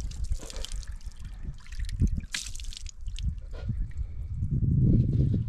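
Water trickling and splashing from the small tap of a plastic water drum over hands being washed beneath it. A low rumble under it swells near the end.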